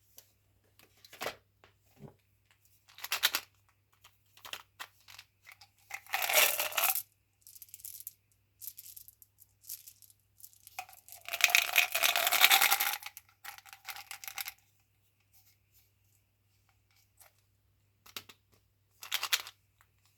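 Chewing gum packaging being handled and opened: scattered short crinkles and taps, with two longer tearing sounds of wrapper or box, about six seconds in and again around eleven to thirteen seconds.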